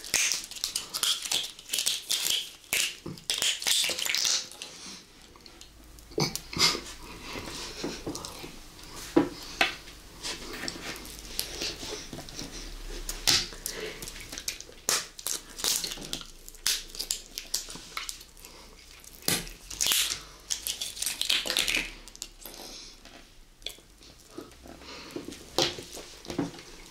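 Close-miked handling of gummy eyeball candies: clear plastic packaging crinkling and clicking, with short taps on the table and the wet sounds of a gummy being bitten and chewed.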